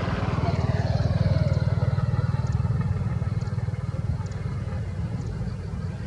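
A motor vehicle passing by, its engine note falling in pitch as it goes past, over a steady pulsing low rumble.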